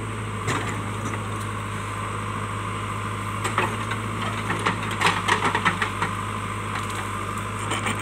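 JCB backhoe loader's diesel engine running steadily. From about three and a half to six seconds in, a run of sharp cracks and snaps comes as the backhoe bucket tears into a shrub and breaks its branches and roots.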